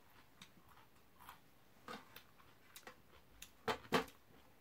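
Scattered small clicks and light knocks of tableware being handled on a low table, with two louder knocks close together near the end.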